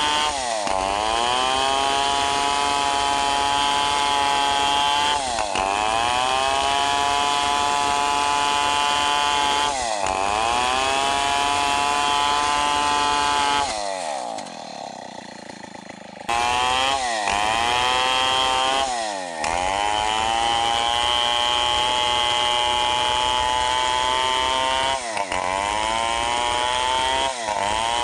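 Stihl 070 two-stroke chainsaw at full throttle, ripping lengthwise through a teak log. The engine note sags each time the chain bites harder and then climbs back, several times over. About 14 seconds in the throttle is let off and the saw drops to idle for about two seconds, then revs back up and carries on cutting.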